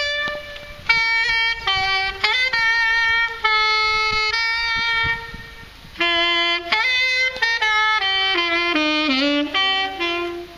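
Solo saxophone playing a slow melody of long held notes, with brief pauses between phrases near the start and about six seconds in.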